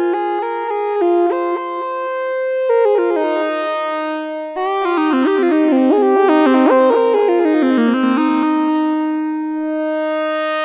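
Sequential Trigon 6 analog synthesizer playing its "Solar Lead" preset: a lead melody of stepping notes. The notes pile up and grow brighter through the middle, with a sweeping shimmer on top.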